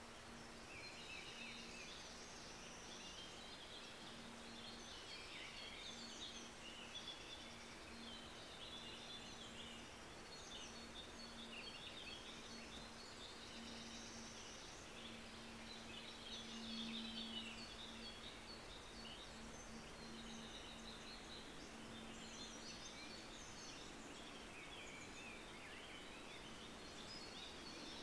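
Faint outdoor chorus of small birds chirping and singing, over a steady low tone of one pitch held underneath.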